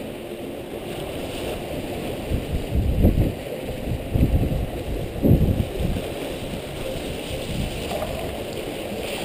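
Wind buffeting the camera microphone in irregular gusts, loudest around the middle, over the steady rush of water along the hulls of a Cat2Fold catamaran sailing fast downwind.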